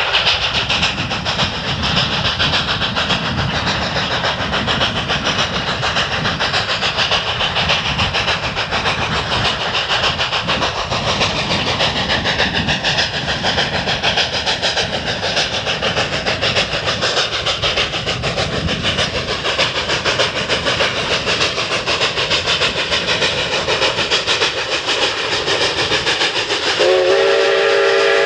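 Two narrow-gauge 2-8-2 Mikado steam locomotives, K-37 no. 497 and K-36 no. 484, double-heading a passenger train, their exhausts chuffing fast and hard over rail clatter. Near the end one locomotive's steam whistle starts, a steady chord of several tones.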